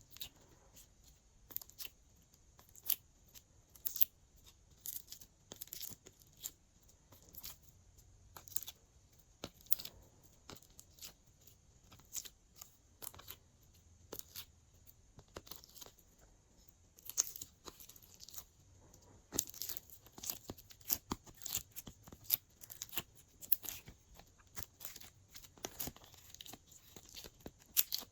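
Glossy slime being squished and stretched by hand, giving irregular sticky clicks, pops and crackles, thicker in the second half.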